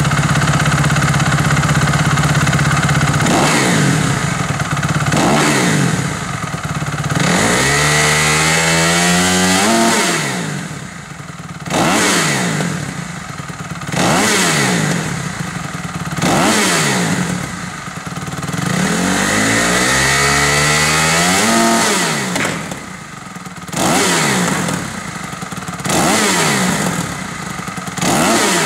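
Kawasaki KX250F's single-cylinder four-stroke engine, breathing through a LeoVince X3 stainless steel/titanium full exhaust system, revved in place by hand. It runs steadily for the first few seconds, then gets short throttle blips about every two seconds and two longer revs that climb steadily in pitch before dropping back to idle.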